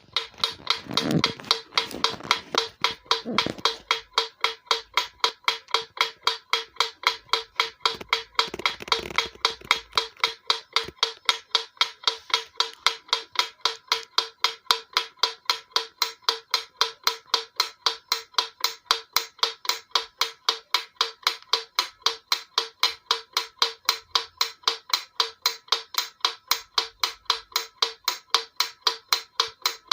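Mechanical wind-up metronome ticking steadily, about three sharp ticks a second.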